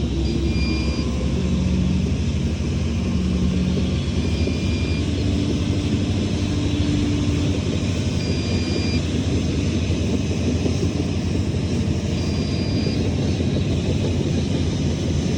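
Heavy diesel earthmoving machinery running under load with a steady low rumble. A short high beep sounds about every four seconds.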